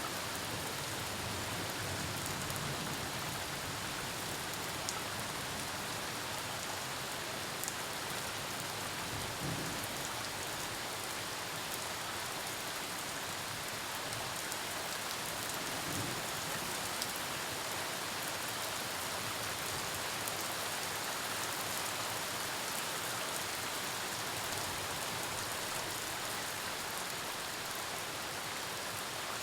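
Steady rain falling on surfaces during a storm, an even hiss with a few sharper drop ticks now and then.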